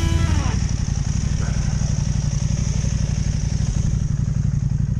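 Adventure motorcycle riding an off-road gravel forest track: the engine runs steadily under wind and track rumble, with some clatter. The tail of a music track fades out about half a second in.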